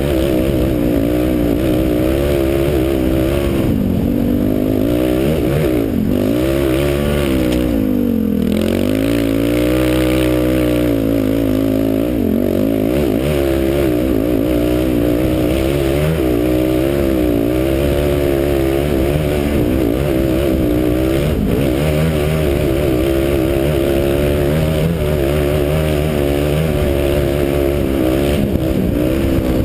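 A 2008 Honda TRX450R ATV's single-cylinder four-stroke engine under way, its revs rising and falling continually as the throttle is worked. The revs drop deeply and climb back about eight seconds in.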